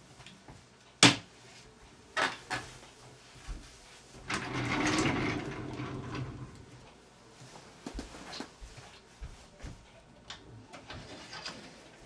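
Knocks and rustling of someone moving about a small room and rummaging at a closet: a sharp knock about a second in, two lighter knocks soon after, a longer stretch of rustling and handling noise in the middle, then scattered light clicks and taps.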